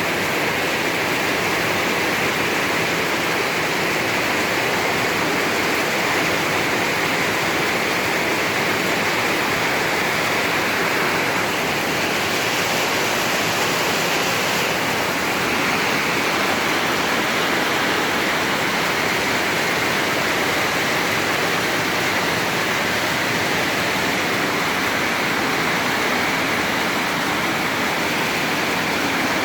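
Heavy rain falling, a loud, steady, even hiss of downpour.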